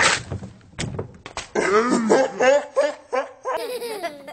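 A young girl laughing in several short bursts that rise and fall in pitch, after a brief harsh burst of noise right at the start.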